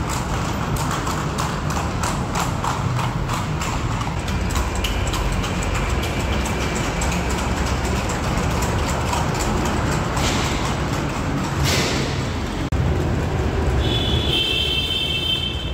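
Many horses' hooves clip-clopping on an asphalt road, over a steady low rumble of passing traffic. A brief high-pitched tone sounds near the end.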